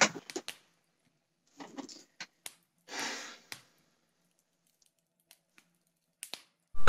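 Soft handling sounds in a small room: scattered light clicks and rustles, with a short breathy exhale about three seconds in, as a person shifts and reaches about at a desk. Right at the end a Yamaha PSR-170 keyboard's demo song starts with sustained electric-piano chords.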